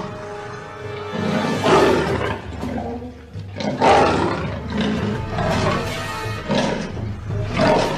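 Big cat roaring and snarling in a string of short growls, about one every one to two seconds, over background music.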